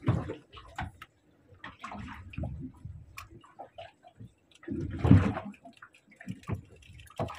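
Seawater sloshing and slapping against the hull of a small wooden boat, in irregular splashes, with a louder slap about five seconds in.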